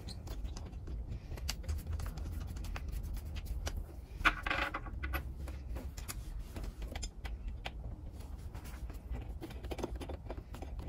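Small metallic clicks and scratches of an Allen key working the bolts that hold a saddle's steel gullet bar, as the bolts are undone and taken out, with a brief louder rustling scrape about four seconds in.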